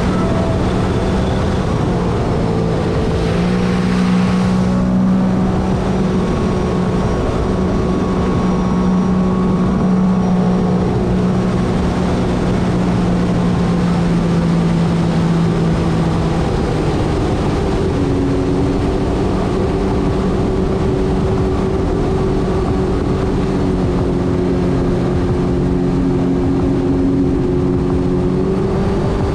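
Sea-Doo personal watercraft's engine running steadily at cruising speed under a steady rush of wind and water noise; the engine note shifts about eighteen seconds in as the throttle changes.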